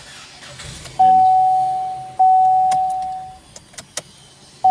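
A single-pitched electronic beep sounding twice, about a second apart, each starting sharply and fading out, followed by a few light clicks.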